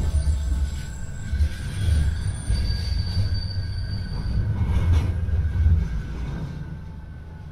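Manchester Metrolink Bombardier M5000 tram running on street track, heard from inside the car: a steady low rumble, with a high wheel squeal on the rails about two and a half to four and a half seconds in. The sound dies down near the end as the tram slows for a stop.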